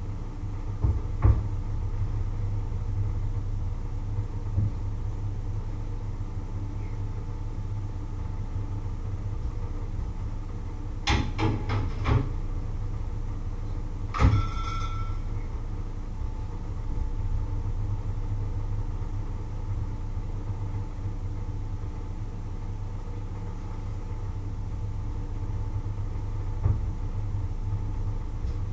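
Kitchenware being handled over a steady low hum: a few knocks, a short run of knocks, and one metallic clatter that rings briefly about halfway through.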